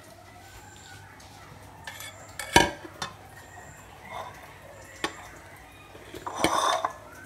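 Dishes and utensils being handled: a few sharp clinks and knocks, the loudest about two and a half seconds in, and a short burst of scraping noise near the end.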